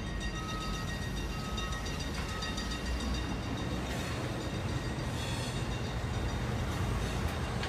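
Slow freight train rumbling along the track. A grade-crossing bell rings about once a second and stops a couple of seconds in.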